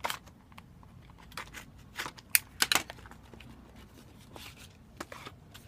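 Packaging of a trading-card box being opened and handled: scattered crinkles, scrapes and sharp clicks, loudest in a cluster a little over two seconds in.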